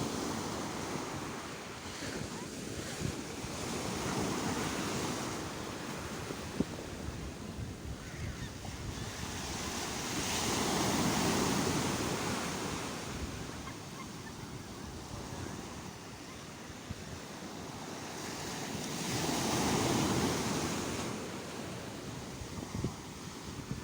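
Sea waves washing and breaking on the shore, the surf swelling and falling back in three slow surges, about one every eight or nine seconds.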